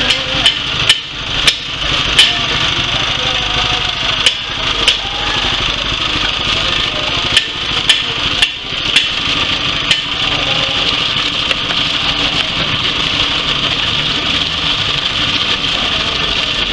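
Coffee pulper driven by a small petrol engine, running steadily. About a dozen sharp knocks and clicks sound irregularly during the first ten seconds, then the steady running continues alone.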